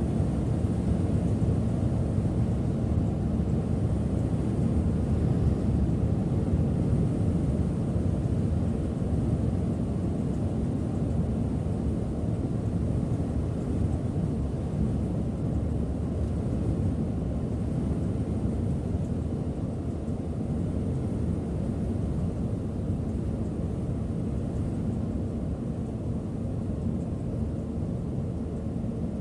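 Steady low rumble of a Setra S 531 DT double-decker bus on the move, heard from inside the cabin at the driver's seat: road and running noise with no distinct events, growing slightly quieter toward the end.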